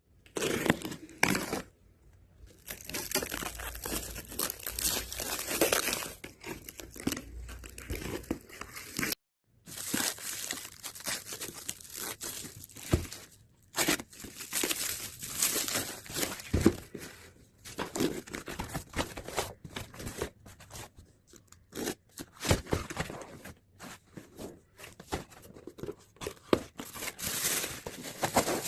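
Packaging being handled and torn open by hand: irregular crinkling and tearing in spells, with brief pauses and a few sharp knocks.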